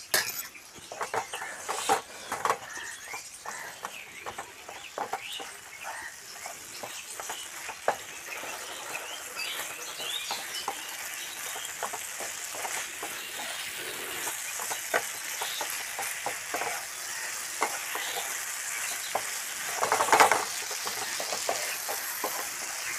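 Wooden spatula stirring and scraping sauce-coated fried potato strips in a frying pan, with many short clicks and scrapes against the pan over a steady sizzle of the sauce as it thickens with cornflour slurry on a low flame. The sizzle grows stronger in the second half, and there is one louder scrape near the end.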